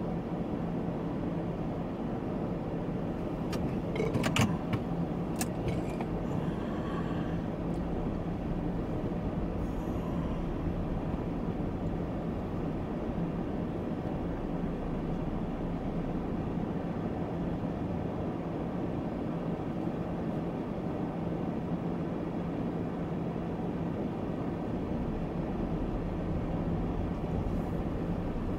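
Steady low hum and rumble of a car heard from inside its cabin as it idles and creeps forward in a queue, with a few sharp clicks about four to five seconds in.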